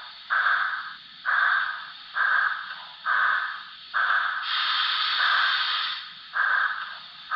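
Broadway Limited PRR T1 4-4-4-4 model steam locomotive's Paragon 3 sound system playing slow steam exhaust chuffs, about one a second, each fading away. A longer, higher steam hiss runs for over a second about four seconds in.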